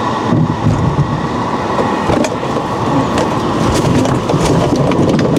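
An off-road vehicle driving over a rough track: steady engine and running noise with scattered knocks and rattles.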